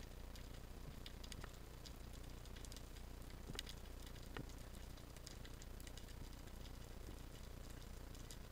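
Faint underwater ambience on a rocky reef: a steady low hum with scattered sharp clicks and crackles, one a little louder about three and a half seconds in.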